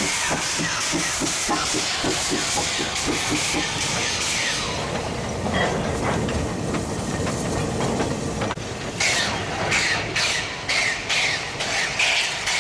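Steam locomotive hauling a train of heavy steelworks ladle wagons at walking pace: hissing steam and a quick regular beat as the wagons roll past, then a duller rumble. About two-thirds through, sharp exhaust chuffs start, a little over two a second, as the locomotive works hard.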